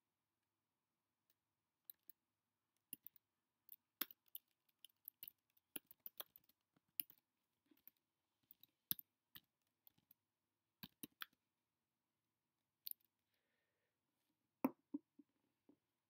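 Computer keyboard being typed on: irregular single keystrokes and short runs of keys, with a pause of a couple of seconds near the end before a louder clack.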